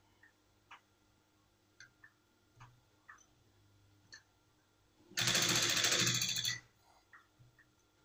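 Industrial sewing machine running in one short burst of fast stitching, about a second and a half long, a little past the middle, as it sews a zip onto trouser fabric. Before it come a few light clicks.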